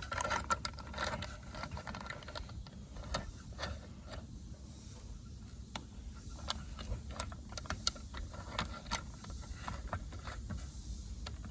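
Irregular light clicks and taps of plastic security-camera and solar-panel mount parts being handled and fitted together by hand, over a low steady rumble.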